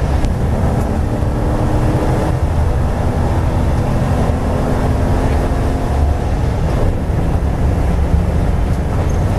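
V8 race car engine running hard at speed, heard from inside the cockpit: a loud, steady low drone.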